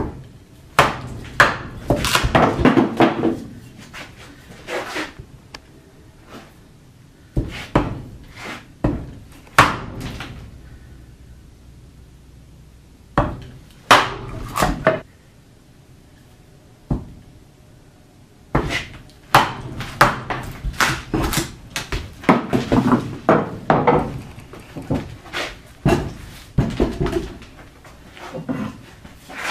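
Wooden mallet striking the back of an axe driven into a green black walnut log to split it: sharp wooden knocks in several bouts of strikes, with pauses between.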